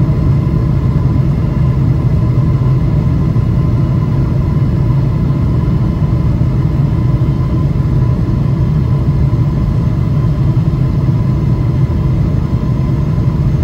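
Steady cabin noise of a Boeing 777-300ER in flight, heard from a window seat beside the wing: a deep, even drone from the GE90-115B engines and the airflow, with a thin steady high tone over it.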